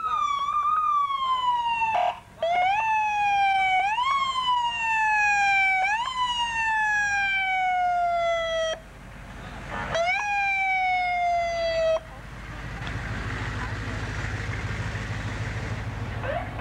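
An emergency vehicle siren sounds, first wavering, then repeating a quick rise and slow fall in pitch about every two seconds, with brief breaks about two and nine seconds in. It cuts off about twelve seconds in, leaving the low rumble of a large vehicle passing.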